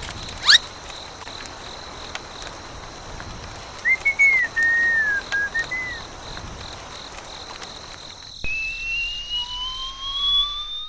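Whistle sound effects: a quick upward swoop, then a short warbling whistle a few seconds later, and near the end a slow, steadily rising slide-whistle glide, over a faint steady high tone.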